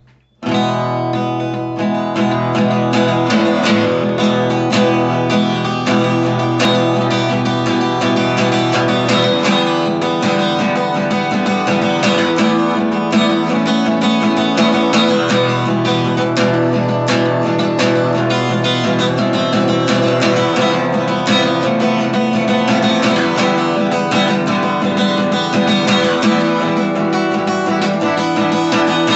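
Acoustic guitar strummed steadily in chords, starting about half a second in, with the chords changing as it goes.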